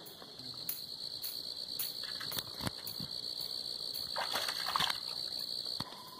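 Night insects chirring in a steady high drone that cuts off near the end, with a few faint knocks and brief splashy noises about four seconds in.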